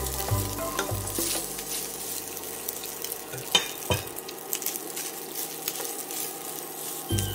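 Cooked rice being stirred and scraped around a hot nonstick frying pan with a wooden spatula, frying with a light sizzle. A sharp knock a little past halfway.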